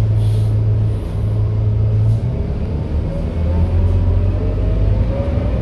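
Scania K230UB bus heard from inside the cabin while driving: the low drone of its five-cylinder diesel engine drops in pitch about two seconds in, then a whine rises steadily as the bus picks up speed. A short hiss sounds in the first second.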